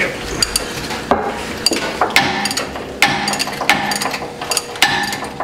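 A string of sharp, irregular metal clanks and knocks, some with a short ring: hand tools striking and working steel as the bell housing bolts on a John Deere 550 dozer's engine are loosened.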